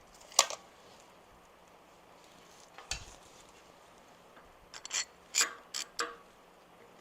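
Sharp metallic clicks and knocks: one about half a second in, another near three seconds, then a quick run of four or five near the end, as steel tubing and flat stock are handled and set down on the bench.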